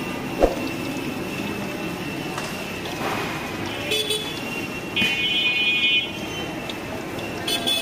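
Street traffic with vehicle horns tooting: short honks about four seconds in and near the end, and a longer one about five seconds in, over a steady background hiss. A sharp click about half a second in.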